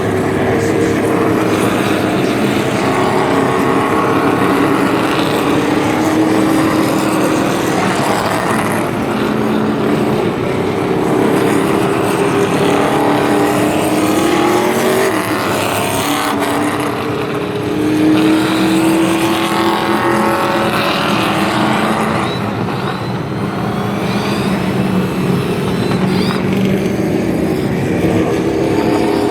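NASCAR Truck Series race trucks' V8 engines running on track, several engine notes overlapping and rising and falling in pitch as trucks go by, loudest about eighteen seconds in.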